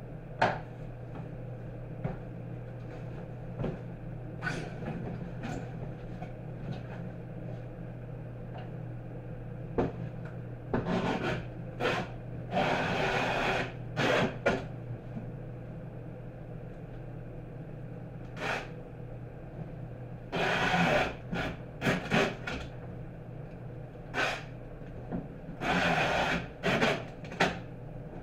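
A cardboard shipping box being folded and sealed with a handheld packing-tape gun: several short screeches of tape pulled off the roll, among knocks and scrapes of cardboard flaps. A low steady hum runs underneath.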